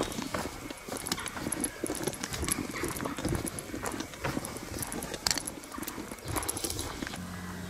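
Walking footsteps on a dirt path strewn with twigs and dead leaves, about two steps a second.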